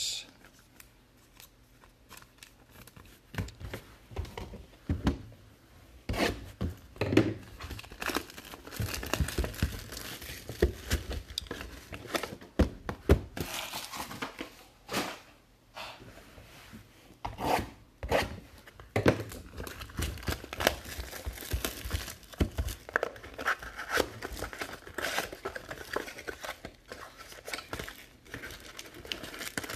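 Plastic shrink-wrap being torn off a sealed Bowman's Best trading-card box and crinkled, with the cardboard box flaps being opened. Irregular tearing, rustling and crackling start a few seconds in.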